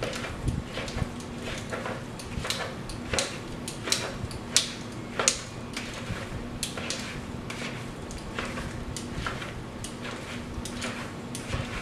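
Utensil stirring flaked crappie fillets into mashed potatoes in a bowl: irregular clinks and scrapes against the bowl, a little more than one a second, over a steady low hum.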